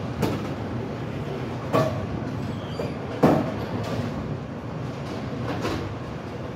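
Bowling alley machinery: a steady rolling rumble from the ball returns and pinsetters, with about four sharp knocks of balls and pins.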